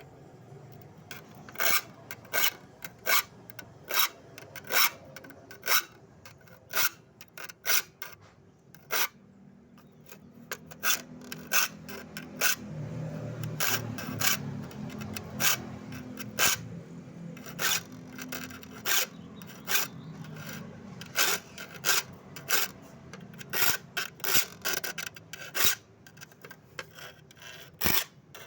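Hand file sharpening the teeth of a handsaw: repeated short rasping strokes, about one or two a second, with a few brief pauses. A low hum rises in the background in the middle.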